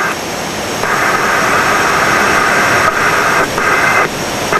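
Steady flight-deck noise of a Boeing 767-300 in flight: a constant rush of airflow and engine hiss with faint high steady tones. A brighter hiss comes in about a second in and cuts out briefly near the end.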